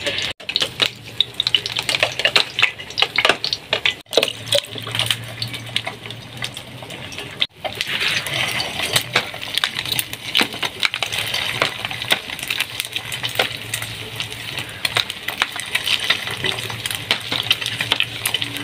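Small kitchen knife peeling raw potatoes by hand: a rapid run of short scraping and clicking strokes as the blade shaves off the skin, broken by two brief gaps.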